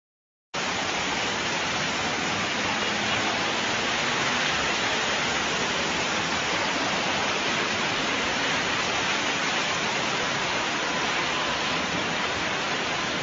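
Steady rush of torrential floodwater pouring down a street, a constant roar-like wash with no breaks, starting suddenly about half a second in.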